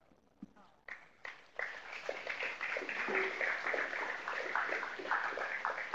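Audience applauding: a few claps about a second in, quickly building into steady applause from many people.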